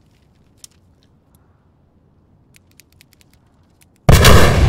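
A few faint clicks from a handheld remote detonator being pressed. About four seconds in, a huge building explosion bursts in and goes on rumbling as the loudest sound.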